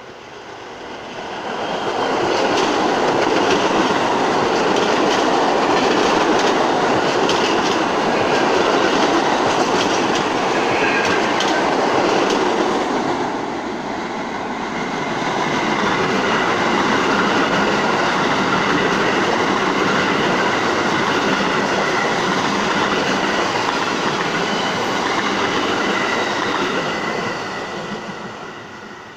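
New York City Subway trains running past the platform, one after another: a steady rumble with clickety-clack of wheels over the rail joints and some wheel squeal. The noise builds about two seconds in, dips briefly about halfway through as a second train comes through, and fades near the end.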